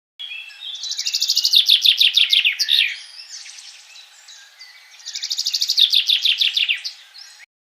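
A songbird singing: two phrases of rapid, evenly repeated high notes, each swelling in loudness and lasting two to three seconds, with softer chirps in the gap between them.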